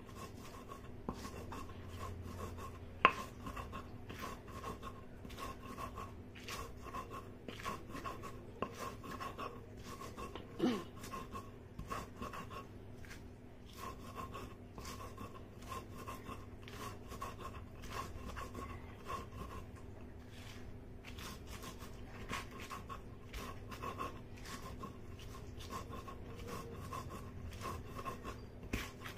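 Sil-batta grinding stone crushing salt and green chillies: the hand stone rubs and knocks against the stone slab in quick repeated strokes, with one sharp knock about three seconds in.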